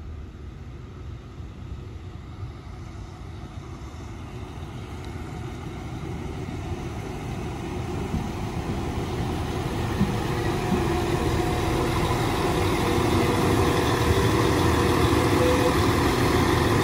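A Class 195 diesel multiple unit approaching and pulling into the platform, its engine and running sound growing steadily louder, with some humming tones.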